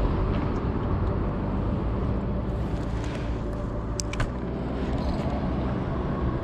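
Steady low rumble of road traffic crossing the bridge overhead, with a single sharp click about four seconds in.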